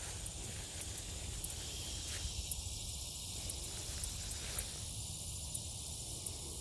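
Steady high-pitched buzzing of insects, such as crickets, in tall summer grass, over a low rumble with a few faint ticks.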